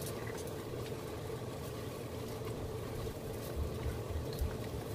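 Stir-fry of beef, vegetables and noodles sizzling steadily in a hot skillet as it is stirred, with a faint steady hum underneath and a few soft low knocks near the end.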